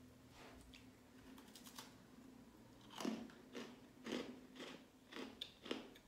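Close-up chewing of a hard shortbread cookie studded with candy-coated milk chocolate. It is faint at first, then from about three seconds in come about six loud crunches, roughly two a second.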